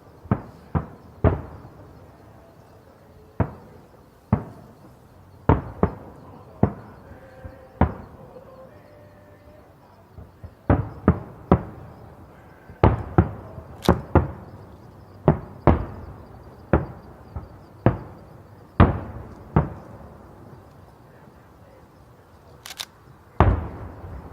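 Fireworks shells bursting one after another at an irregular pace, each a sharp bang with a short echoing tail, coming thickest in a quick run in the middle.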